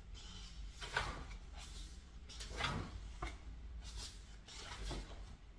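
Thick glossy pages of a photobook album being turned by hand: several short papery swishes about a second apart, the first the loudest.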